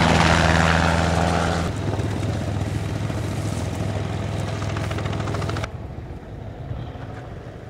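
Low-flying catch helicopter passing close, with loud rotor and engine noise that is loudest at the start. About two seconds in, the sound changes abruptly to a steadier, lower engine drone, which drops away sharply near the end.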